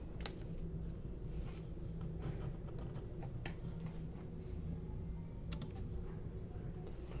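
Faint steady low hum with a few scattered light clicks and taps.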